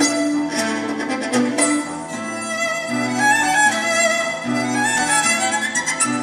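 Solo violin, bowed, playing a melody over orchestral accompaniment with a pattern of held bass notes.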